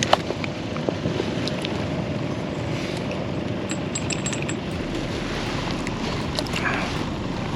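Steady wind and water noise on a fishing boat, with a few light clicks through it.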